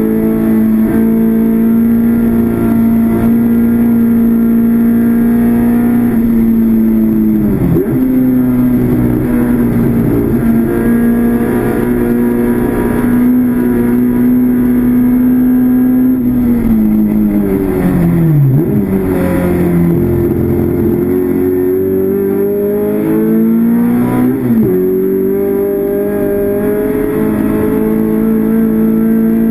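Classic Mini race car's A-series four-cylinder engine at racing revs, heard from inside the cabin. The revs hold high with a brief dip about seven seconds in, fall away past halfway as the car slows for a corner, then climb again, with a quick gearchange drop near the end before running steady at high revs.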